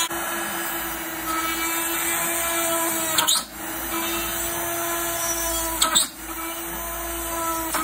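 Homemade mini drill built on an RS560 DC motor, running at high speed with a steady whine as a fine bit drills into thin metal sheet. Two short sharp noises stand out, about three and six seconds in.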